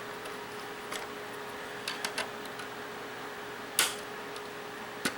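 A few short plastic clicks and taps from handling a laptop's case and internal parts, scattered through, three close together and the sharpest a little later. Under them runs a faint steady hum.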